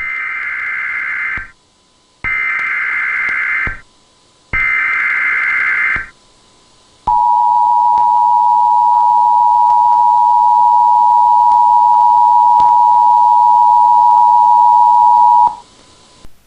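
Emergency Alert System header: three short bursts of screeching digital data tones, then a long steady attention tone of about eight seconds that cuts off sharply. Together they mark the start of a new alert message.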